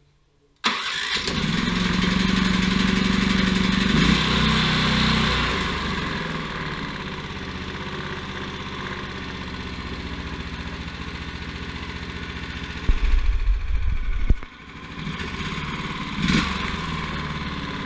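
Predator 420cc single-cylinder four-stroke engine firing up about half a second in. It runs fast and loud for the first few seconds, then settles to a lower, steady running speed. Near the end a heavier, deeper burst lasts about a second, dips briefly, then steady running resumes.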